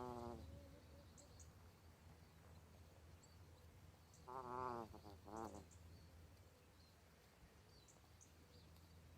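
A sleeping gosling snoring: two wavering, pitched breath sounds about four and five seconds in, the second shorter, with the tail of another fading out at the start.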